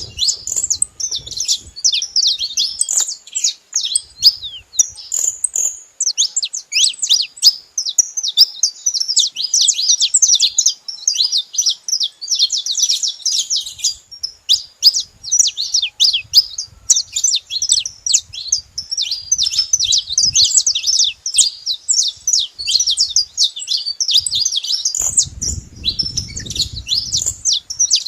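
Several saffron finches chirping and singing together: a dense, unbroken stream of quick, high, overlapping notes.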